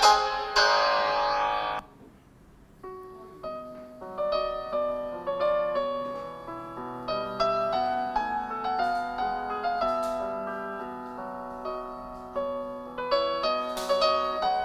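Google Pixel 3a XL ringtones: one bright, busy ringtone ends about two seconds in. After a pause of about a second, another ringtone begins, a melody of separate notes that each start sharply and fade.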